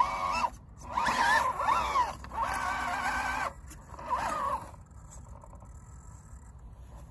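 Electric drive motor and geared transmission of an Axial SCX10 II 1:10 scale RC crawler whining in four throttle bursts, the pitch rising and falling with the throttle as the truck climbs out of a rut under load. The whine stops about five seconds in.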